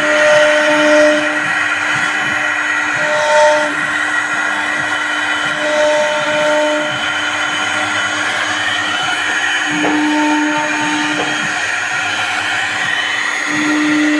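CNC router spindle running with a steady whine while carving an HDHMR board, with short higher tones coming and going every few seconds and a slow rise in pitch about two-thirds of the way through.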